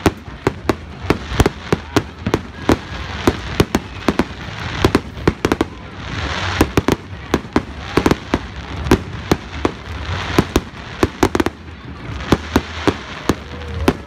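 Fireworks display: aerial shells bursting in quick, irregular succession, sharp bangs about two or three a second, with a crackling hiss between them that swells near the middle.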